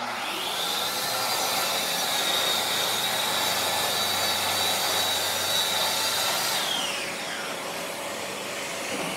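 Track saw motor spinning up to speed with a rising whine, running steadily through a crosscut in a wood panel, then winding down with a falling whine about seven seconds in. A dust extractor hums along with it.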